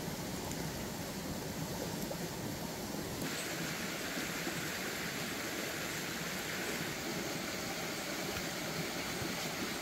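Steady rushing hiss of outdoor forest ambience, like running water or wind, with no distinct events. Its tone brightens at a cut about three seconds in.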